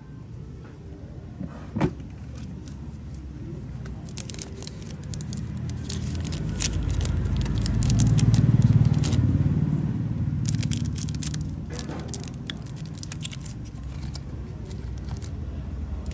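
Metal lighters being handled: sharp metallic clicks and clinks come in flurries from about four seconds in. Underneath, a low vehicle rumble swells and fades, loudest about halfway.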